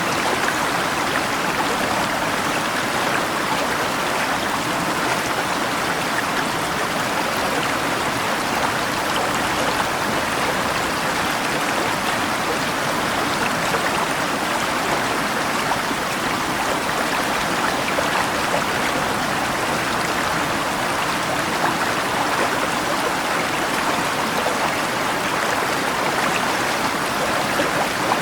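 Steady rushing and babbling of a flowing river, an even wash of water noise with no thunder.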